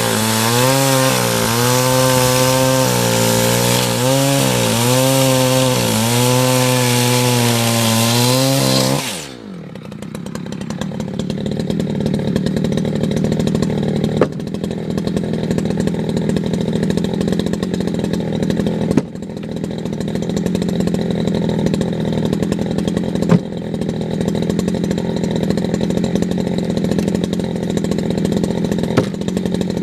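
Echo CS620 60cc two-stroke chainsaw running at full throttle, its engine pitch dipping and recovering as it works through the wood. About nine seconds in the throttle is released and the engine falls to a steady idle, with a few sharp knocks over it.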